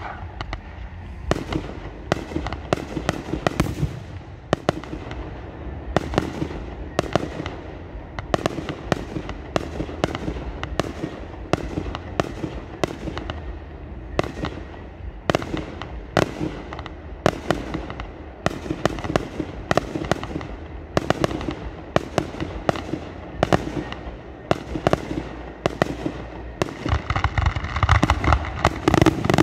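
Fireworks display: a rapid, irregular string of sharp bangs, two or three a second, getting denser and louder near the end.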